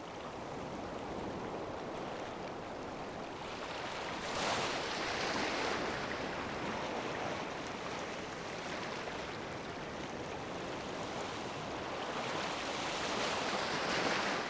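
Ocean waves washing on the shore, a steady wash of surf that swells louder about four seconds in and again near the end as waves break.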